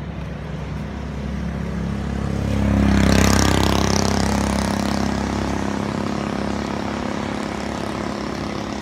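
A motor vehicle passing on the road, its engine hum and tyre noise swelling to a peak about three seconds in and then slowly fading away.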